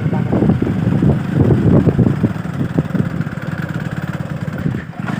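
Motorcycle engine running steadily, heard from on the bike.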